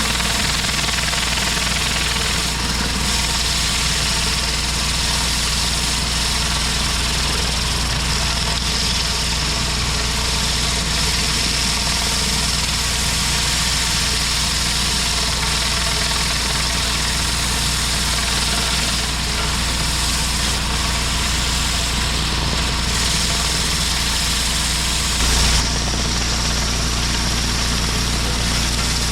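Gas pressure washer engine running steadily, under the even hiss of a high-pressure water spray on concrete. A brief surge comes about 25 seconds in.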